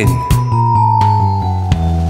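Instrumental backing music of a children's song: a held high note over a bass line that moves in steps.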